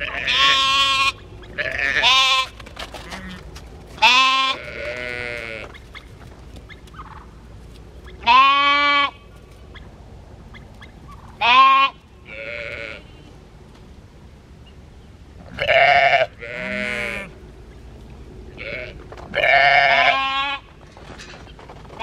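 Sheep bleating repeatedly: about a dozen wavering calls at different pitches from several animals, some much louder than others.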